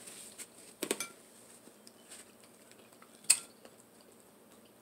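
An eating utensil clinking against a plate a few times: a couple of quick clicks about a second in and a single sharp one a little past three seconds.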